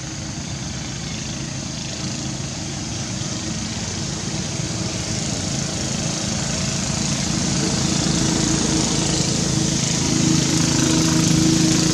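A small engine running steadily with a droning hum, growing louder over the second half.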